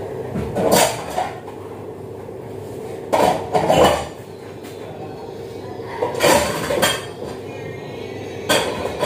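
Dishes and pots clattering at a kitchen sink counter in a few short bursts a few seconds apart, over a steady low hum.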